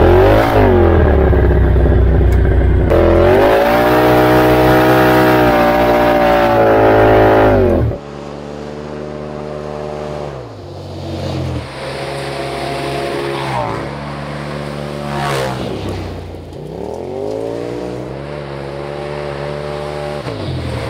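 Polaris RZR Pro XP's twin-cylinder engine through an MBRP stainless slip-on active exhaust. For the first eight seconds it is revved up and down close to the exhaust tips. Then, more distant, the machine accelerates along a gravel trail, the engine rising in pitch and dropping back several times.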